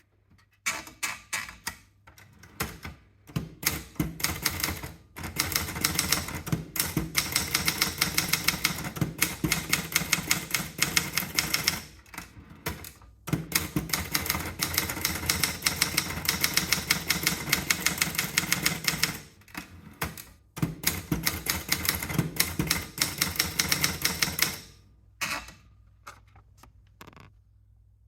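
Scheidegger International typewriter being typed on: fast runs of key strikes broken by short pauses. Near the end it slows to a few single strokes.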